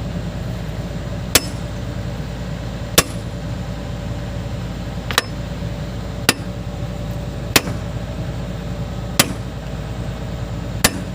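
Seven sharp hammer blows on steel, one to two seconds apart, during work on the excavator's track links. Beneath them a diesel engine idles steadily.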